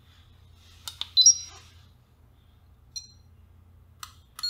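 Peak Atlas ESR70 capacitor meter starting a test: a click, then a short, high electronic beep about a second in, with a fainter blip about three seconds in and small clicks and another short beep near the end as it analyses the capacitor.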